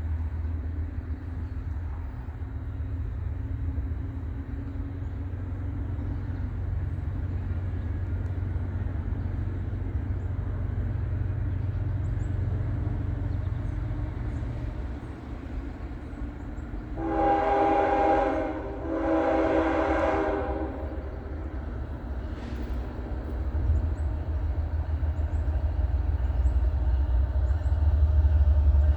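Freight train led by a GE ES44AH diesel locomotive approaching, its engine a steady low rumble that grows louder near the end. Two long chord-horn blasts sound over the rumble, starting about two-thirds of the way through.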